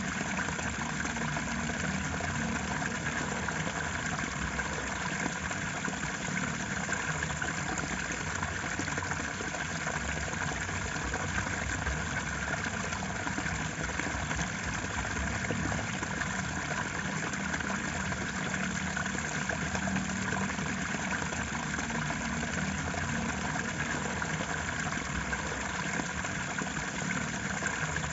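Steady, continuous rushing of flowing water, with a low rumble underneath.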